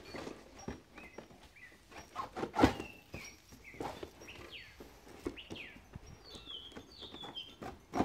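A northern mockingbird singing a run of short, varied chirping phrases, under the rustle and scrape of cardboard boxes being handled, with one loud knock about two and a half seconds in.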